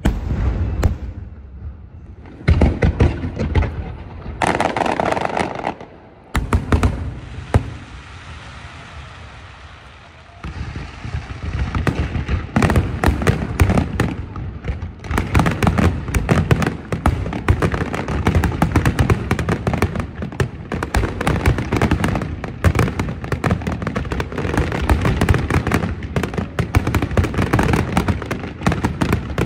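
Fireworks display: scattered bangs and bursts, building about ten seconds in into a near-continuous barrage of rapid explosions.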